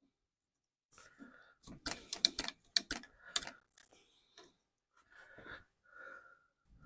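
Irregular metal clicks and clatter from a hand grease gun being worked on the riding mower's front-end grease fittings, with a few short squeaks.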